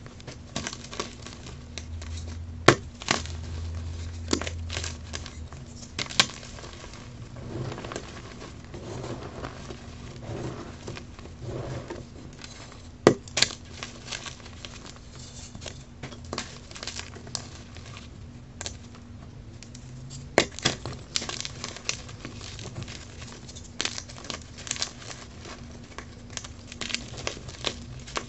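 Blocks of dyed gym chalk crushed and crumbled in bare hands: a continuous dry crunching and crumbling, broken by several sharp snaps as pieces crack apart.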